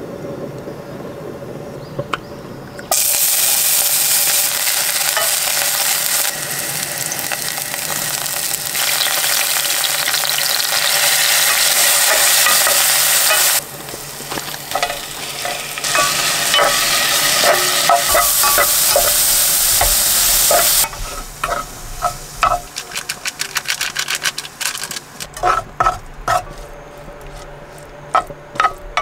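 Hot oil sizzling loudly in a pan as shrimp and other seafood fry, starting suddenly about three seconds in. In the last third the sizzle drops away and a wooden spatula clicks and scrapes against the pan as the food is stirred.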